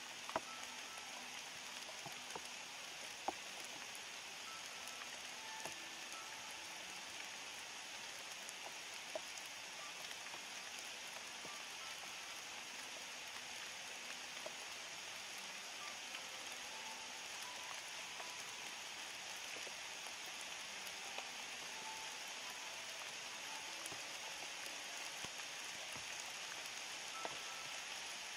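Steady rain falling, with now and then a sharp tick of a single drop landing close by; the two loudest ticks come within the first few seconds.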